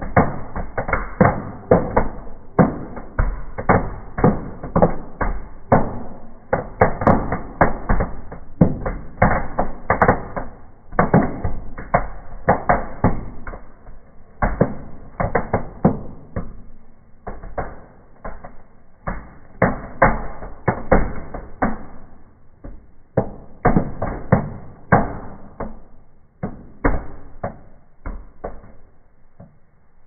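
Small fireworks crackling and popping inside a fireplace firebox: a dense run of sharp pops, many a second, that thins out and fades near the end.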